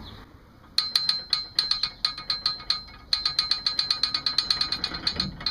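Trailer hitch ball mount rattling loose in its receiver, a run of quick metallic clicks that starts about a second in and becomes faster and steadier after about three seconds: the play in the fit that the owner fears will rattle on the road.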